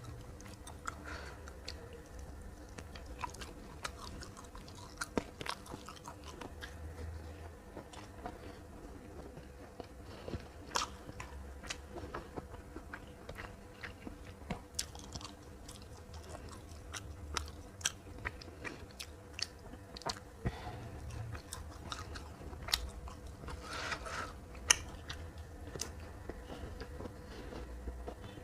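A person biting and chewing a meal of fried fish, green beans and rice, with frequent short, sharp crunches all the way through.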